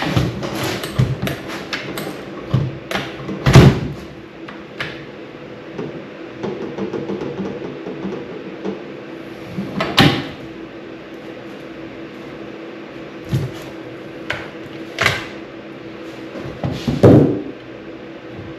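Irregular knocks and clunks of wooden boards and tools being handled and set down during drawer-slide fitting, the sharpest about 3.5, 10 and 17 seconds in, over a steady low hum.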